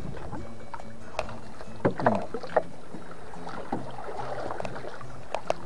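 Water lapping and sloshing against the hull of a small fishing boat, with a brief cluster of sharper sounds about two seconds in.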